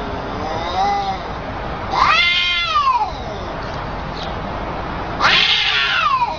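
Cats yowling at each other in a face-off: drawn-out caterwauls that rise and fall in pitch. There is a faint one just under a second in, then two loud, long yowls about two seconds and five seconds in, the second starting harsh and raspy.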